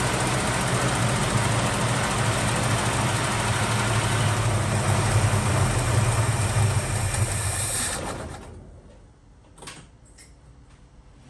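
Valiant Charger's engine idling steadily, then switched off about eight seconds in and running down to a stop, followed by a couple of faint clicks.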